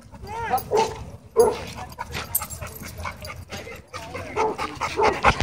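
Several dogs barking and yipping while playing, with a few quick rising-and-falling whining yelps about half a second in.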